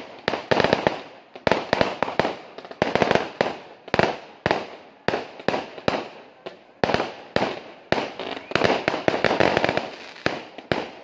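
Aerial fireworks firing in a rapid string: sharp bangs about twice a second, some in quick clusters, each trailing off before the next.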